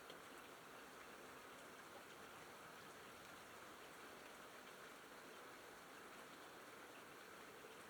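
Quiet, steady rain falling, a continuous hiss with faint scattered drop ticks.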